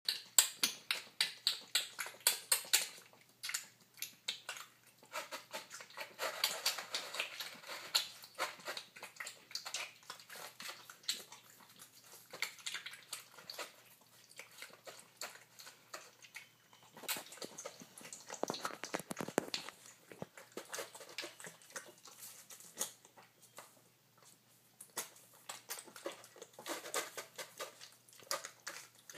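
Piglet eating wet mash from a plastic bowl: quick, wet chomping and smacking clicks, about five a second over the first few seconds, then looser and more irregular.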